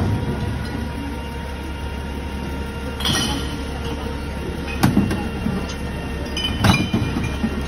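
Rear-loading garbage truck running with a steady low hum while plastic wheelie bins are handled at it, with clanks and knocks about three seconds in, near five seconds and near seven seconds.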